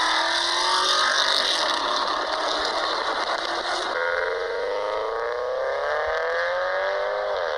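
Recorded car engine and exhaust sounds played through a smartphone's small speaker, thin with no bass. One engine clip runs, then about four seconds in it switches to a different car's engine, its note climbing steadily and dipping near the end.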